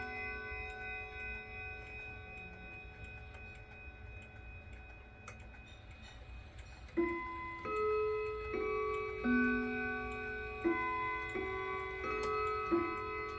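Howard Miller regulator wall clock (model 612-533) chiming: the last notes of one chime ring out and fade, the movement ticks faintly, and then, about seven seconds in, eight ringing notes sound in two groups of four. This is the half-hour chime, set off by turning the minute hand by hand to the half hour.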